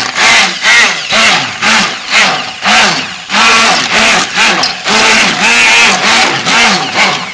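Handheld stick blender running in a stainless steel pot of lotion, its motor pitch dipping and rising about twice a second as the blade works through the mix. It is emulsifying the melted oils into the water to make lotion.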